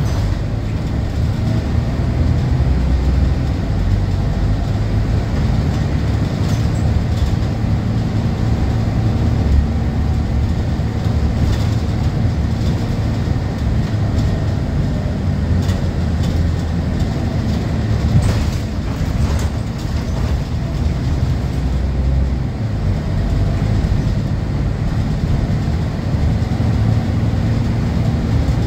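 Scania K230UB city bus under way, heard from inside the passenger cabin: a steady low drone of its rear-mounted diesel engine with road noise, and a few short clicks and rattles scattered through.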